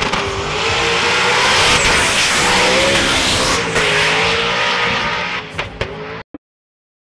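Race car engine at high revs with tires squealing in a wavering tone, as in a drag-racing burnout. The sound cuts off abruptly about six seconds in.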